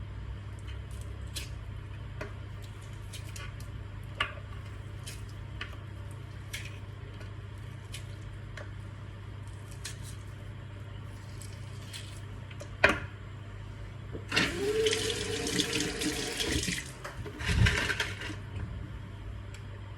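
Small clinks of kitchenware, then a countertop blender runs in two short pulses, about two and a half seconds and then about a second, churning liquid yogurt and fruit with a gushing, watery sound.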